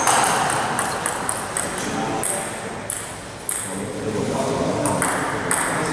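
Table tennis rally: a rapid run of sharp clicks as the ping-pong ball is struck by the bats and bounces on the table.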